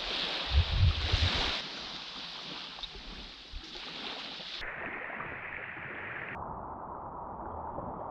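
Small waves washing onto a sandy shore, a steady rushing noise, with a few low bumps about a second in.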